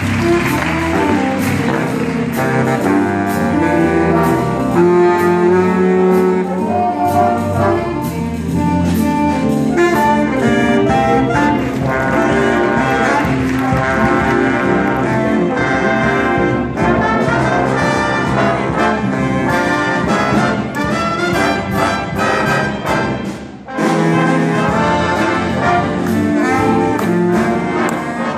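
Student jazz big band playing live, with trumpets, trombones and saxophones together. The full band drops out for a moment about 23 seconds in, then comes back in.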